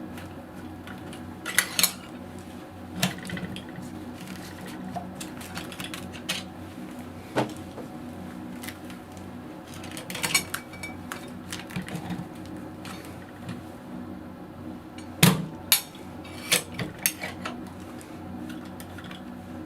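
Irregular metallic clinks and knocks, about a dozen, the loudest around 1.5 s and 15 s in, over a steady low hum.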